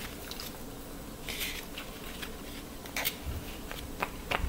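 A fork mixing soft cooked ramen noodles on a paper plate: light scrapes and scattered soft clicks and taps, with a brief scrape about a second and a half in.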